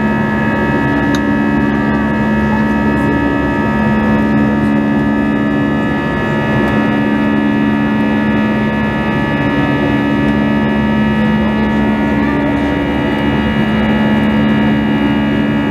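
Jet airliner cabin drone in flight: the steady hum of the turbofan engines and airflow heard from inside the cabin, with several held tones and a low tone that swells and fades every second or two.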